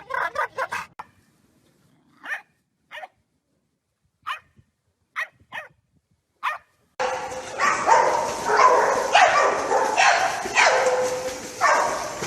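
A dog barking and yipping over and over in a loud, dense run that starts about seven seconds in, after a few scattered short taps.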